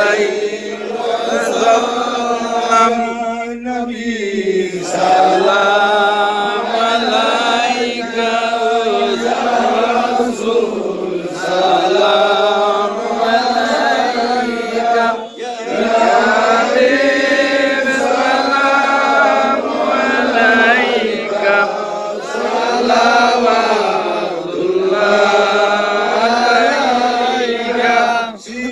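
Men's voices chanting an unaccompanied Arabic devotional song in praise of the Prophet Muhammad (salawat). The melody moves in long, drawn-out phrases that rise and fall every few seconds.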